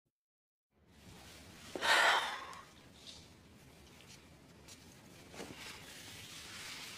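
A woman sighing once, a short breathy exhale about two seconds in, with a fainter breath later, over faint room tone.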